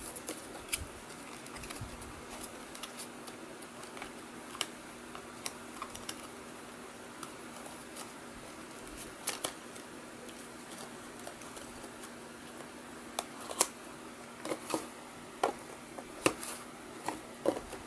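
Scattered light clicks and taps of small plastic parts being handled, sparse at first and coming closer together in the last few seconds, over a faint steady hum.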